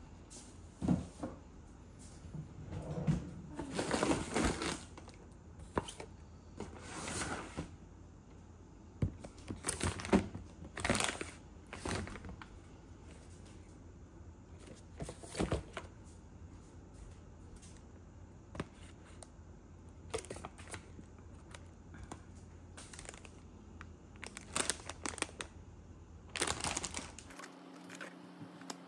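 Groceries being unpacked from a cardboard delivery box: plastic packaging crinkling and rustling, with scattered light knocks as cartons and containers are set down on a counter. Near the end the background changes to a steady low hum.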